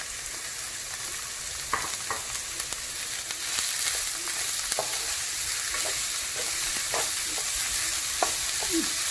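Chopped onions sizzling in hot oil in a nonstick pan, stirred with a wooden spatula that scrapes against the pan in short strokes. The sizzle is steady and grows a little louder a few seconds in.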